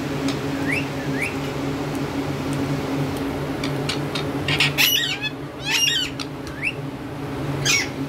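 Caged rose-ringed parakeets calling: two short rising chirps in the first seconds, then loud, shrill squawks about halfway through and again near the end, over a steady low hum.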